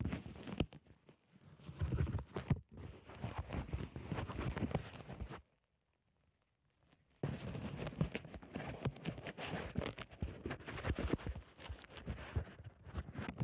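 Adhesive tape being torn and pressed around an earbud right against a cellphone microphone: close, crackly rustling, scraping and tearing noises. It stops for about two seconds midway, then starts again.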